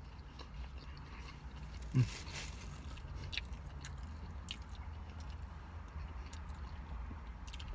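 A man chewing a mouthful of fast-food cheeseburger slider, with small wet mouth clicks and one short, louder mouth sound about two seconds in, over a steady low hum.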